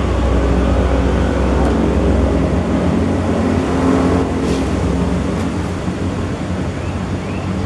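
Low, steady engine rumble of a passing motor vehicle, easing off after about four seconds. A few short rising chirps come near the end.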